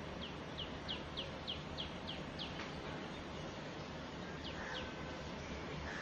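A bird calling a quick run of about eight short high chirps, then two more a couple of seconds later, over a steady background hiss.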